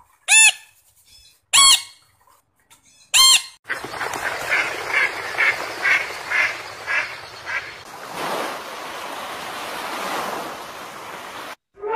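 An African grey parrot gives three short, loud whistles about a second and a half apart. A flock of mallards then quacks, about two calls a second, over the wash of water. From about eight seconds in, small waves wash over a sandy beach.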